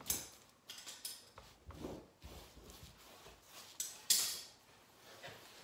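Paintbrush stroking paint along wooden chair rail molding: a few short soft brushing swishes, the loudest just after the start and another about four seconds in.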